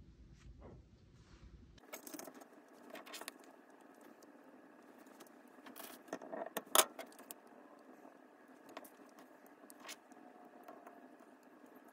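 Paper rustling and crinkling, with small clicks and taps, as thin paper sticker strips are peeled and handled. The loudest crinkle comes about seven seconds in.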